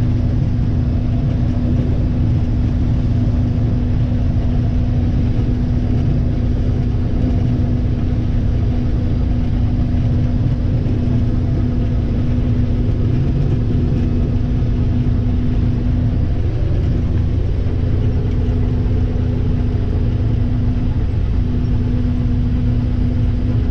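Combine harvester running steadily while harvesting corn: a continuous low engine-and-machinery rumble with a constant hum.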